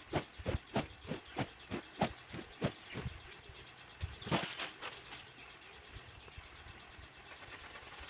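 Paddy rice being tossed and shaken in a woven winnowing basket (soop): a rhythmic rustling swish about three times a second for the first three seconds. A louder rustle comes a little after four seconds, then only a faint steady hiss.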